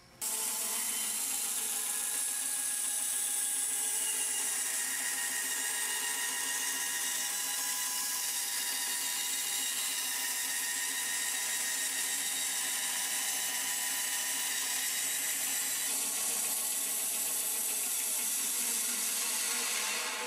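Bandsaw running and cutting through a block of lime wood, a steady whirring drone with an even hiss.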